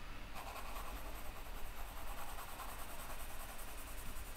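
Sharp-tipped colored pencil shading on paper: a faint, steady scratching as a light layer is built up.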